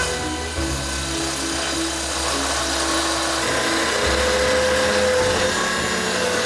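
A power tool running steadily on a woodworking job, under background music.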